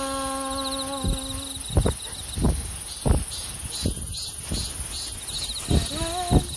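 Crickets chirping in a high steady trill. A held musical note fades out about a second and a half in, and a string of short low thumps is scattered through the rest.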